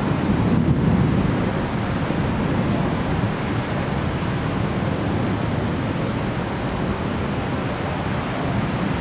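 Storm ambience over a city: a steady low rushing rumble with no distinct events, a little louder in the first second or so.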